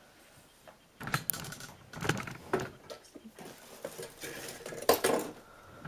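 Irregular light rustling and clicking of objects being handled on a tabletop, such as plastic nail-strip packaging, starting about a second in, with the loudest clicks near the end.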